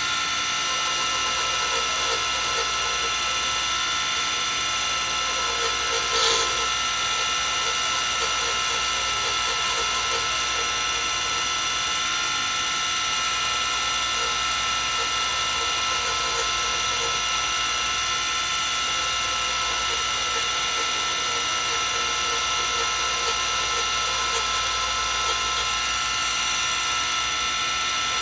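Wood lathe running steadily with a high whine while a hand-held turning tool cuts the spinning wood-and-resin blank. A brief louder scrape comes about six seconds in.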